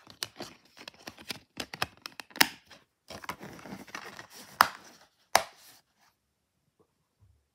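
Plastic DVD case being handled: a run of clicks and plastic rattles as the disc is pressed onto the case's centre hub and the case is closed. There are three louder snaps, the last about five and a half seconds in.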